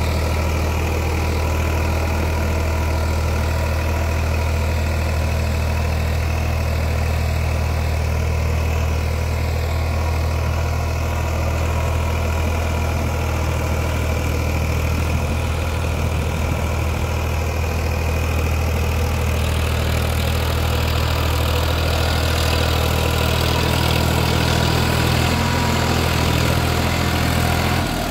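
Farmtrac 45's three-cylinder diesel engine running steadily under load while it pulls a 16-disc harrow through the soil.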